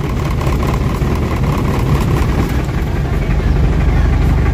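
Vehicle engine running steadily at low revs in slow traffic, a low rumble that grows slightly louder in the second half.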